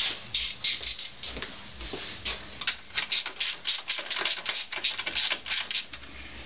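Irregular metallic clicking and rattling from hand tools working on the carburetor assembly, a few clicks a second and busiest through the middle, with a ratchet-like sound to it.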